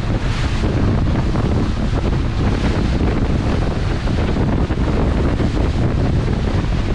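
Strong wind buffeting the microphone: a loud, steady, rumbling roar, heaviest at the very bottom.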